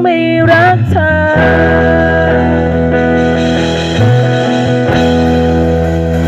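Small live band playing: acoustic guitar, bass guitar and a drum struck with sticks, with a singer's voice. The voice bends through a phrase in the first second, then the music settles into long held notes.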